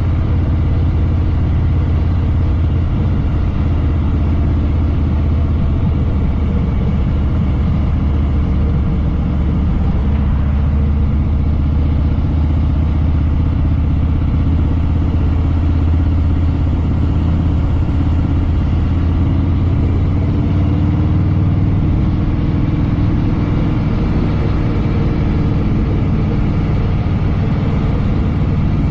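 Harley-Davidson Fat Boy Lo's air-cooled V-twin engine running steadily at low revs, heard from the rider's seat. Its note shifts slightly about two-thirds of the way through.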